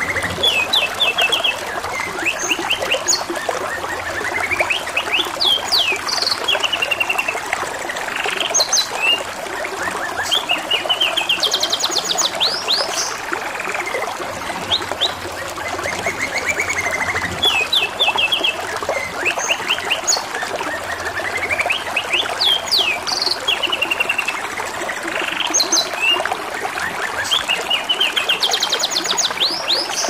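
Domestic canary singing continuously: fast trills of repeated notes and quick rising whistled sweeps, over a steady trickle of running water.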